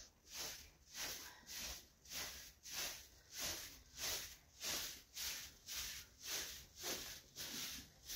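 Short hand broom sweeping an earthen floor: a steady rhythm of brushing swishes, about one and a half strokes a second.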